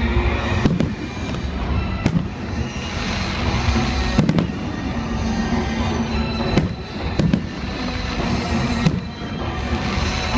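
Aerial fireworks bursting, a sharp bang every second or two, with music playing underneath.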